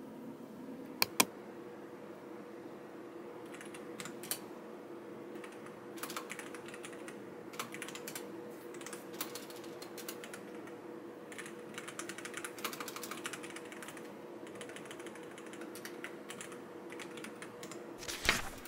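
Typing on a computer keyboard: irregular runs of key clicks, with two sharper clicks about a second in, over a faint steady hum.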